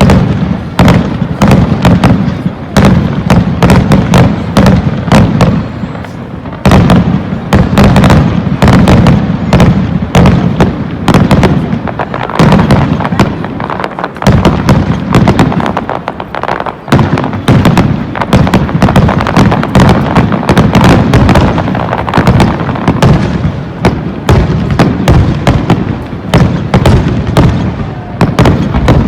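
A dense barrage of aerial fireworks shells bursting in rapid succession at the peak of a display, several loud bangs a second with rumbling crackle between them. There are a few brief lulls.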